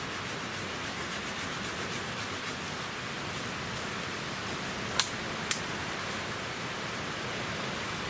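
Small hand saw cutting through a green hazel stem, a steady rasping of the teeth in the wood, with two sharp clicks about five seconds in.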